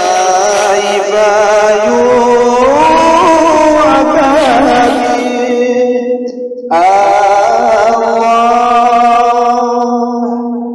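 A voice singing an ornamented Arabic devotional chant in praise of the Prophet, with a steady low note held beneath it. The phrase breaks off about six seconds in and a new one begins.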